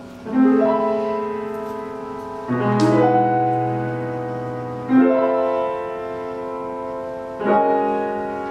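Grand piano playing slow chords, four in turn, each struck about two and a half seconds after the last and left to ring and fade.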